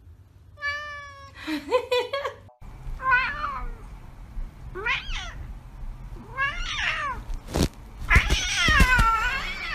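Domestic cats meowing: two meows in the first couple of seconds, then a run of drawn-out meows from a second cat, about every two seconds, each rising and falling in pitch, the last the longest and loudest. A couple of sharp knocks come near the end.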